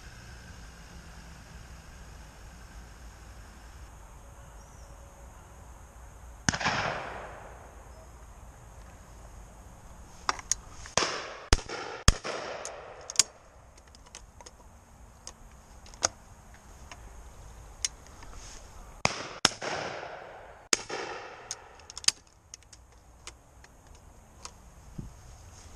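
Shotguns firing on a pheasant shoot: more than a dozen sharp reports from about six seconds in, several trailing off in a long echo across the open field. The loudest come close together around the middle, where the over-and-under shotgun is mounted to the shoulder.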